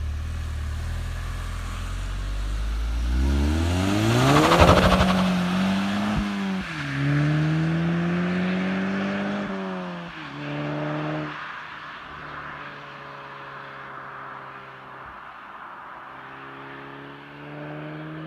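Volkswagen Golf VI GTI's 2.0-litre turbocharged four-cylinder on its stock exhaust, running low, then revving up hard and loudest about four and a half seconds in. It then upshifts twice, the pitch dropping at each change and climbing again, and fades as the car drives away.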